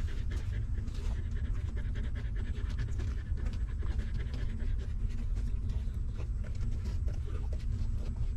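Nursing mother dog panting steadily with her mouth open, with many faint clicks through it.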